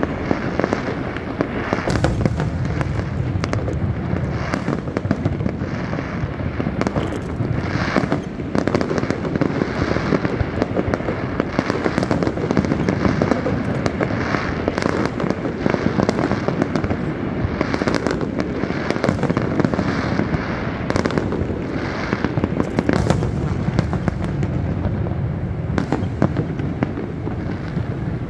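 Aerial fireworks display: a dense, unbroken run of shells bursting, bangs overlapping with crackling effects several times a second.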